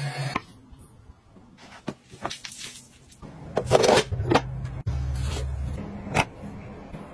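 A handheld mite vacuum cleaner's motor running, cutting off just after the start. It is followed by a series of hard plastic clicks and knocks from household gadgets being handled, the loudest just before four seconds in, with a low hum under them for a couple of seconds.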